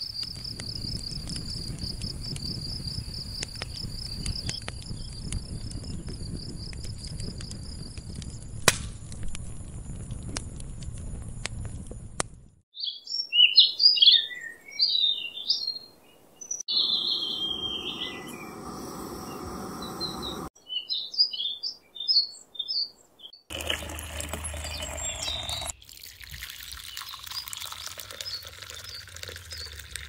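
Outdoor ambience in short cuts: first a steady, rapid high-pitched insect trill over a faint hiss, then birds chirping and singing in short phrases, and in the last few seconds birdsong over a low steady hum.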